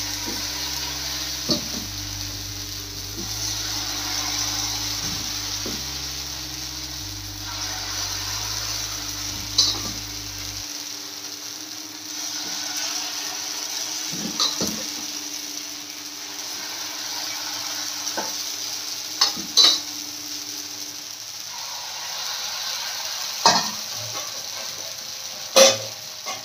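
Wheat-flour batter sizzling as it fries in a hot, oiled pan, with a few sharp clinks of a spoon against the pan.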